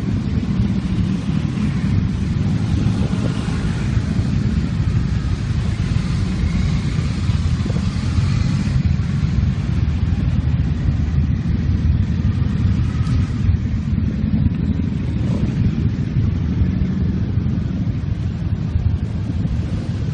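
Many motorcycles riding past one after another in a long line, their engines making a continuous low rumble with no break.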